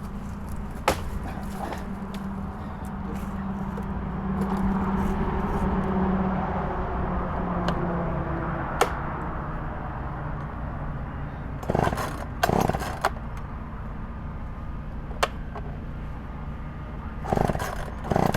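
Two-stroke chainsaw running at cutting speed through pine, its pitch steady and its level swelling for a few seconds midway, then easing. Sharp knocks and a few thumps break in, the loudest cluster about twelve seconds in and near the end.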